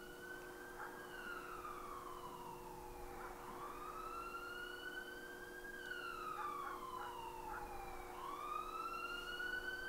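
Police siren wailing faintly, its pitch rising and falling slowly, about one full rise and fall every four to five seconds, over a faint steady hum.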